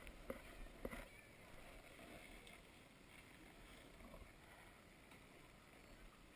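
Near silence: a faint steady background hiss, with a few soft clicks in the first second.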